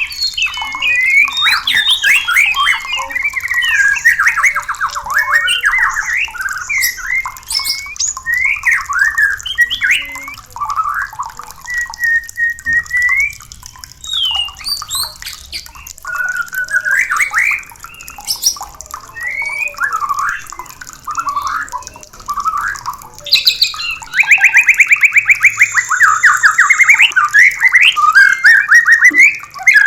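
White-rumped shamas singing: a varied run of loud whistled phrases, slurs and chatters, with a fast rattling trill about two-thirds of the way through.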